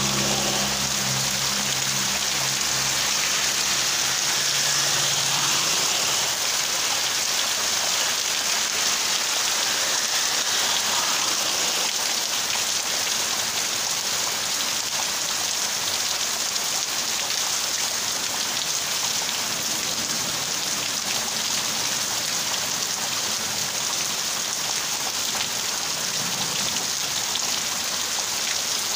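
Heavy rain pouring steadily, a dense even hiss of drops on surfaces.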